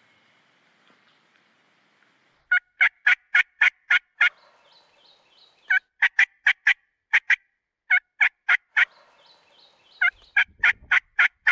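Turkey yelps on a diaphragm mouth call: four loud strings of short, sharp notes, about four a second. Between the strings a wild turkey gobbler gobbles back faintly in the distance, answering the calling.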